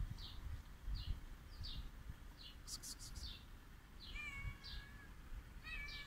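Small birds chirping: short, high, falling chirps about twice a second, a brief rattle about three seconds in, and two longer calls with several notes later on. A low rumble runs underneath.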